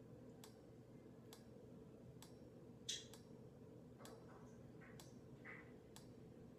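Quiet room with a faint, regular tick a little under once a second, like a clock ticking, and one short, soft rustle about three seconds in.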